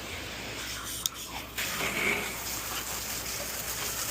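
Hand pump sprayer misting a bleach soft-wash solution onto the base of a garage door: a short click, then a steady spray hiss from about a second and a half in.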